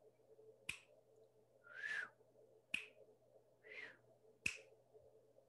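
Three sharp clicks about two seconds apart, alternating with two soft, breathy blowing sounds.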